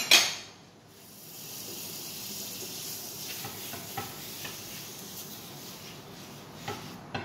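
Butter sizzling as it is wiped around a hot nonstick crepe pan: a steady hiss that sets in about a second in, with a few light taps. A sharp knock comes right at the start, the loudest sound.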